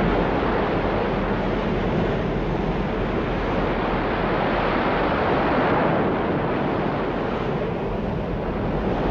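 Stormy sea sound effect: waves surging and wind blowing, heard as a steady, loud rushing noise.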